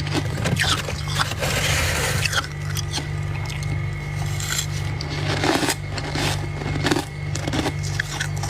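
Freezer frost crunching and scraping in a bowl: a string of sharp crackly clicks, with a longer scrape about one and a half to two and a half seconds in. A steady low hum runs underneath.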